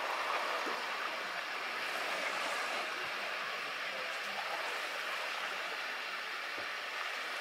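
Small waves lapping on a pebble beach, a steady even wash of water noise.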